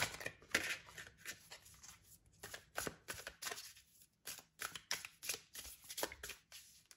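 Deck of tarot cards being shuffled by hand: a quick, irregular run of soft card slaps and riffles.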